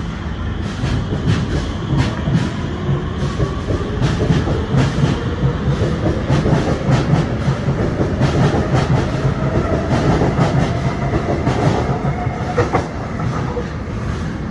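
Metro train (SMRT Movia R151) running on the track, its motor whine rising steadily in pitch over about ten seconds as it gathers speed, with repeated clicks from the wheels on the rails.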